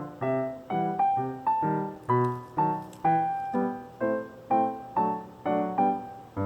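Piano music: a light melody of struck chords, about two a second, each fading before the next.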